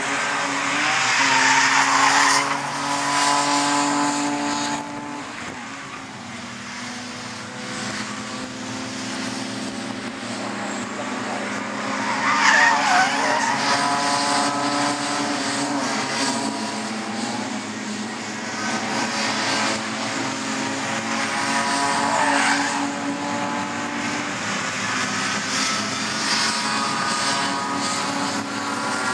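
A pack of race cars passes at speed, several engine notes at high revs overlapping. It comes in waves, loudest about two seconds in, again a little before the middle, and around two-thirds of the way through.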